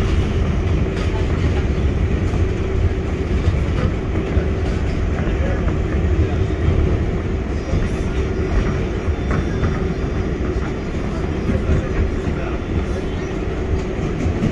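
R142A subway car running on the rails, heard from inside the car: a steady low rumble of wheels and track with a constant hum, faint high tones in the middle and a few light clicks.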